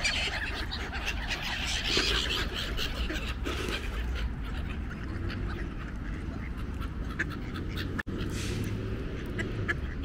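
Ducks quacking, a dense run of short calls in the first half that thins out later, over a steady low rumble. The sound drops out for an instant about eight seconds in.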